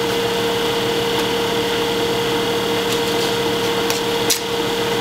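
Small benchtop wood lathe's electric motor running at a steady speed, a constant even hum, with a couple of faint clicks near the end.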